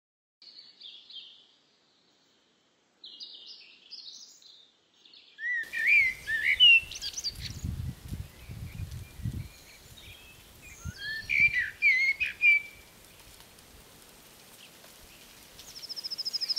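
Several birds chirping and calling in open scrubland, with a few low rumbles around the middle and a rapid high trill near the end.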